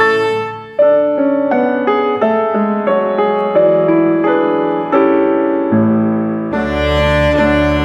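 Instrumental music: a melody of separate, short notes that each ring and fade, played by a piano-like keyboard. About six and a half seconds in, a fuller sustained accompaniment with a low bass line comes in.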